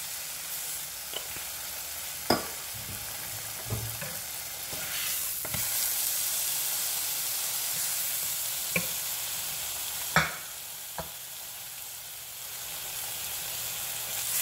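Slices of smoked picnic ham sizzling steadily in a hot non-stick frying pan, with a fork clicking against the pan a few times as the slices are moved and turned.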